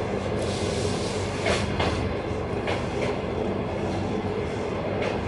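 Inside a moving train: the steady rumble of the carriage running along the track, with a few sharp clicks from the wheels.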